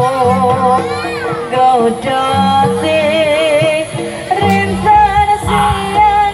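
Javanese kuda lumping (jaran kepang) gamelan music played live: a wavering, vibrato melody line sung over low held notes from the ensemble.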